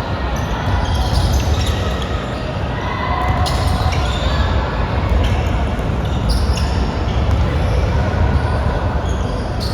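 Basketball game in a gym: a ball bouncing on the court with scattered short squeaks and distant voices, over a steady low rumble from the hall.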